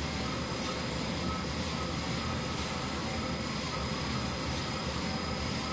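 Commercial drum coffee roaster running steadily with a batch of coffee beans turning in the drum, early in the roast during the drying phase. Steady mechanical noise with a faint high whine above it.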